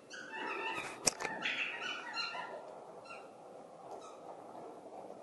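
A dog whining in a run of short, repeated cries, with one sharp click about a second in.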